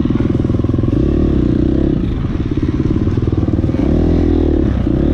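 Dirt bike engine running under throttle, revs varying with a fast, uneven pulse, then settling into a steadier held drone about four seconds in.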